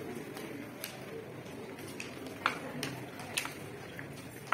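Footsteps of several people on a polished marble floor: shoes clicking sharply at an uneven pace, the loudest steps about halfway through.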